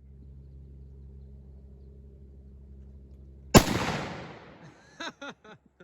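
A single gunshot from a shoulder-fired gun, a sharp crack about three and a half seconds in that rings off over about a second. A steady low hum comes before it.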